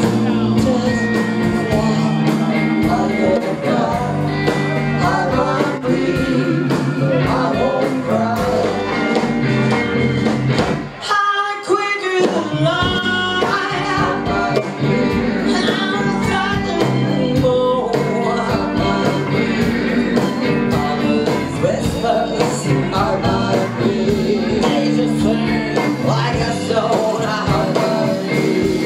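Live rock band with a female lead singer, electric guitars and drums playing a song. About eleven seconds in, the band drops out for about a second, then comes back in.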